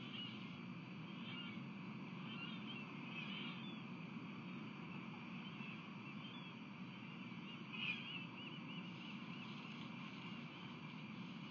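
Osprey calling: bouts of short, quickly repeated whistled chirps, the loudest bout starting about eight seconds in. A steady low rumble of background noise runs underneath.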